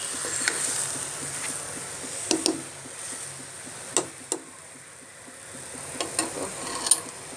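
A spoon knocking and scraping against the cooking pot several times while biryani is stirred, over a faint steady hiss.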